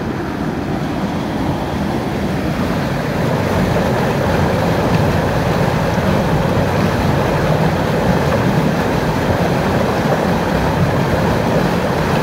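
Sutlej river water rushing and churning turbulently past the concrete walls of the headworks: a steady, loud rushing noise that grows a little louder over the first couple of seconds.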